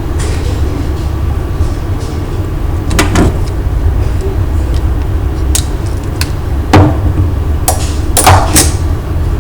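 A steady low rumble with a handful of sharp clicks and scrapes, one about three seconds in and several more in the second half, from hands working a Cat5 network cable, its RJ45 plugs and tools.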